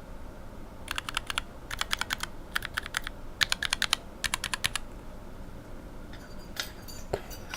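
Rapid groups of keystrokes on unlubed linear mechanical keyboard switches (Cherry retooled bottom housings with Revo White stems and springs): five quick bursts of five or six clacks each in the first five seconds, then a few fainter clicks and a knock near the end.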